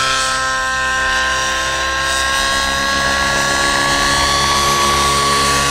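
O.S. 105 nitro glow engine with a Powerboost tuned pipe in a Velocity 90 radio-controlled helicopter, running at flight power: a loud, steady engine whine with slight shifts in pitch. The engine is new and running a little rich.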